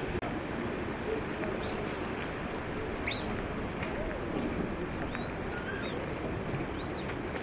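Small bird chirping: a few short, high, arching chirps, the loudest about five and a half seconds in, over a steady background hiss.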